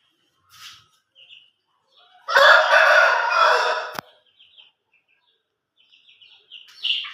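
Aseel rooster crowing once, a loud call of nearly two seconds that starts about two seconds in and ends abruptly. Faint short high chirps sound before and after it, with a louder one near the end.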